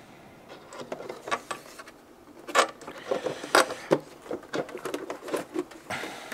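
Handling noise of a model aircraft's painted engine cowl being fitted over the fuselage nose with a card template: irregular rustles, taps and clicks. The two loudest come about two and a half and three and a half seconds in.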